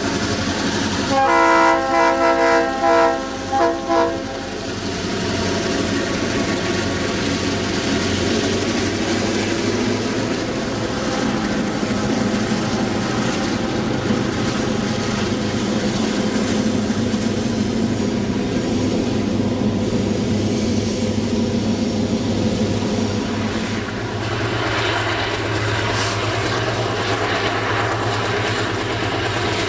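Diesel-electric locomotive sounding its air horn in a quick run of short blasts about a second in, over the steady sound of its engine working at high throttle and the train rolling on the rails.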